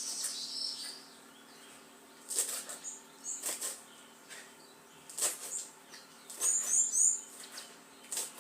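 Kitchen knife chopping fresh coriander on a cutting board: separate knocks, about one every second or so, at an uneven pace.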